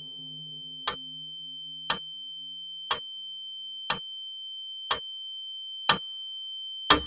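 A clock ticking about once a second over a steady high-pitched tone, the last tick the loudest, then the sound cuts off. A faint low hum fades away partway through.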